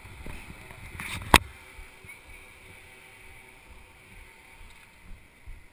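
Handling noise from a helmet-mounted camera being adjusted by hand, with one sharp knock on the camera body about a second and a half in. Around it are a low, uneven rumble on the microphone and a faint steady background hum.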